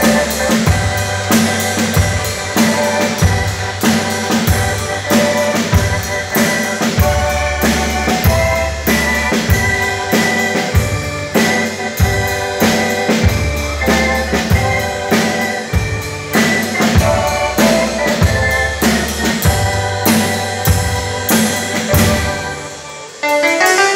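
Music with a drum kit keeping a steady beat under melodic instruments. Just before the end it fades down, and a new piece starts abruptly.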